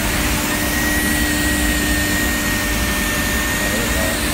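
S8 SK12V9 CNC nesting router running smoothly: a steady whir with a low hum. A thin high whine joins about half a second in and stops near the end.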